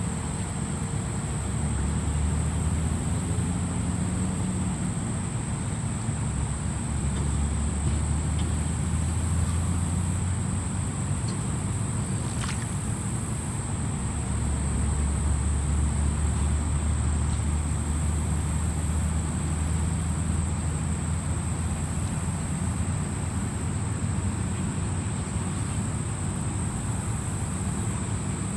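Steady outdoor ambience: insects sing throughout, one in a constant high buzz and others in high trills that start and stop every second or two. Beneath them runs a low, slowly swelling rumble.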